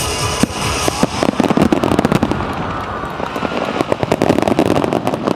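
Aerial fireworks going off in quick succession: a dense run of sharp bangs and crackling pops that thickens about a second in.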